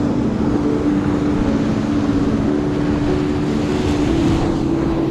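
Background music of held low notes over a steady rush of wind and ocean surf.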